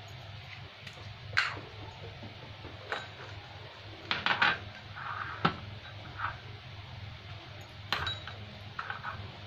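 Steel spoon and glass coffee jar being handled at a plastic food processor bowl: scattered light clinks and taps, several in quick succession about four seconds in and again near the end.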